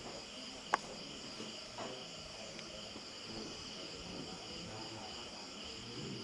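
Steady high-pitched chorus of night crickets, with one sharp click about a second in.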